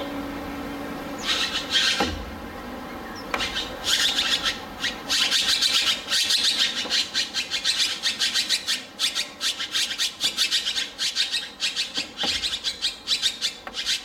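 Taiwan blue magpie making harsh, raspy sounds in rapid runs of short strokes, several a second, from about four seconds in, after a few raspy bursts near two seconds.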